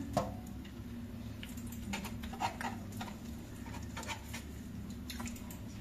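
Kitchen knife slicing raw chicken breast on a plastic cutting board: irregular light clicks and taps of the blade on the board, over a low steady hum.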